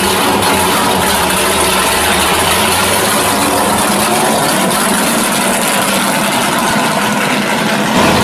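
A 1968 Pontiac GTO drag car's V8 engine idling steadily as the car rolls forward, loud and even, with a slight rise in level near the end.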